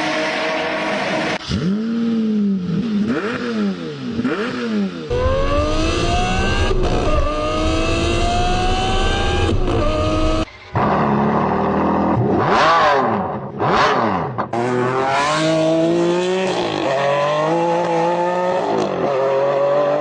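V12 supercar engines revving and accelerating, in several clips cut together. Quick throttle blips rise and fall, then come acceleration runs whose pitch climbs through the gears with steps at each shift, and two sharp rev spikes about two-thirds of the way in.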